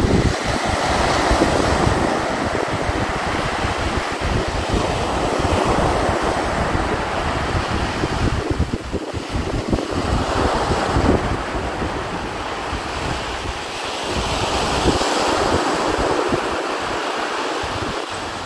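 Sea surf breaking and washing up a sandy beach, swelling and ebbing, with wind gusting across the microphone; the wind rumble eases near the end.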